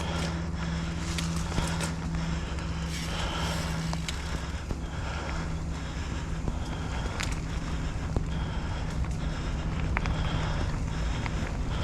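Mountain bike riding along a dirt trail: rumbling tyre and wind noise on the microphone, broken by frequent sharp clicks and rattles from the bike over bumps, with a steady low hum underneath.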